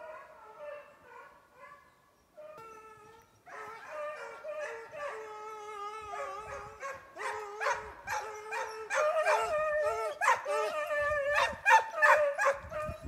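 Hunting hounds baying on a snowshoe hare's track. The baying is faint at first and drops out briefly about two seconds in. It then grows steadily louder and is loudest near the end, as the chase comes closer.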